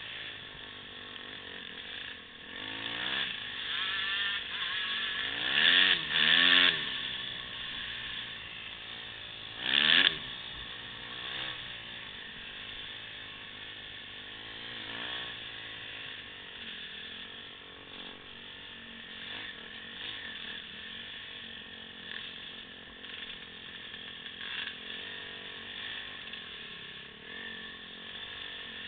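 Motocross bike engines revving, the pitch rising and falling as the throttle opens and closes, loudest about six and ten seconds in, then a fainter engine drone for the rest of the time.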